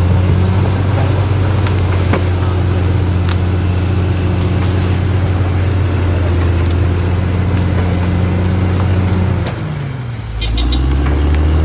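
Caterpillar D6R XL bulldozer's diesel engine running steadily under work. About nine and a half seconds in, the engine note drops in pitch and level, then climbs back up, with a few light clanks.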